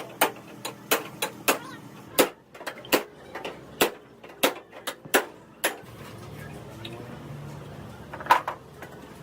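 Irregular sharp metallic knocks, about two a second, from hand-tool work on a truck; they stop about six seconds in, giving way to a low steady hum, with a last couple of knocks near the end.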